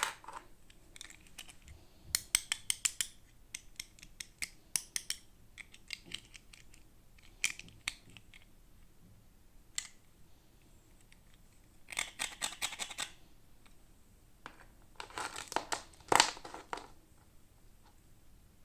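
Toy packaging being handled and opened by hand: quick clicks and crinkling rustles of plastic and card, in several short bursts with pauses between them, the densest about two seconds in, about twelve seconds in and from about fifteen to seventeen seconds.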